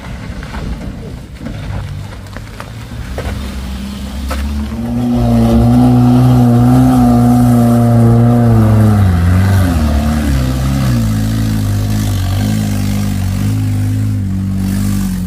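A vehicle engine is worked hard close by. After a few seconds of lower rumble it revs up to a loud, steady pitch. Its pitch then drops and settles lower.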